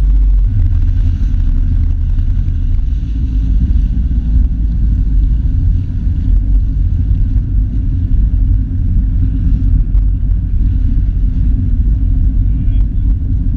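Jet ski engine, the Yamaha GP1300R's two-stroke triple, running steadily at low speed, a deep continuous rumble with water splashing against the hull, heard through a GoPro housing close to the water.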